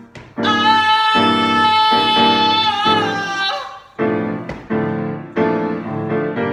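Piano chords struck in a steady pulse, with a voice holding one long wordless sung note over them for about three seconds before the piano carries on alone.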